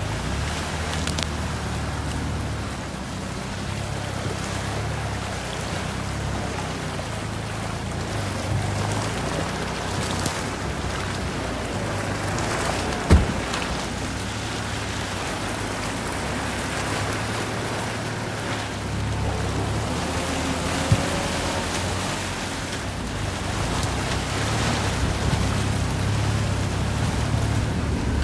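Off-road 4x4's engine running steadily as it wades through a shallow river, with water rushing and splashing against the vehicle. There is a sharp knock about 13 seconds in and a smaller one about 21 seconds in.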